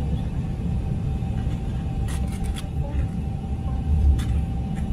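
Airliner cabin noise inside an Airbus A350-900 on approach: a steady low rumble of airflow and engines, with a faint steady hum above it. A few brief clicks about two seconds in and again near the end.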